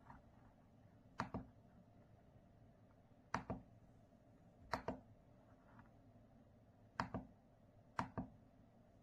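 Single keys on an RK Royal Kludge S98 mechanical keyboard being pressed one at a time, five keystrokes spaced unevenly, each a quick double click as the key goes down and springs back up.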